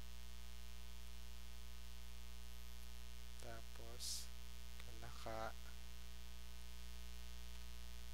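Steady electrical mains hum with a faint buzz of evenly spaced overtones. A couple of short, quiet murmured words come about halfway through.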